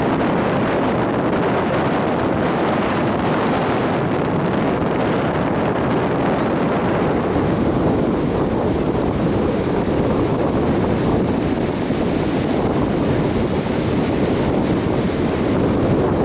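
Wind blowing across the microphone over the wash of sea surf, a steady rushing noise.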